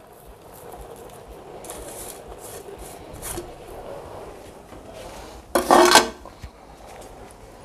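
Crisp fried onions rustling faintly as they are scattered by hand over cooked rice in an aluminium pot, a soft dry scraping. A brief louder sound comes about five and a half seconds in.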